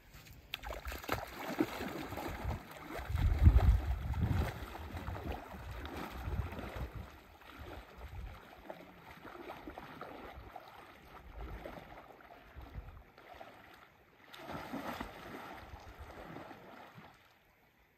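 Lake water splashing as a person wades out from the shore, legs pushing through the shallows, loudest in the first few seconds. About fourteen seconds in there is a fresh burst of splashing as he goes under and starts to swim.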